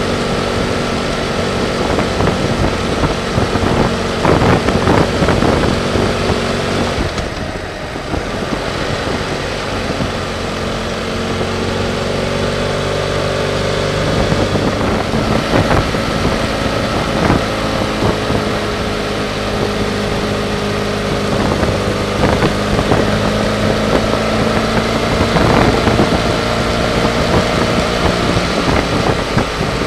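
BMW F800GS parallel-twin engine running under way, its pitch rising and falling with the throttle, over a steady rush of wind and road noise. It eases off briefly about eight seconds in.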